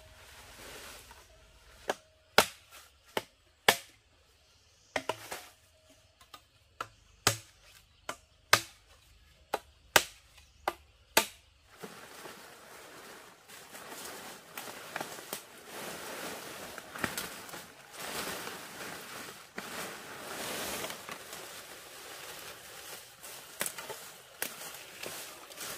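About fifteen sharp, irregular knocks or chops over the first twelve seconds, then a steady rustling noise with scattered clicks.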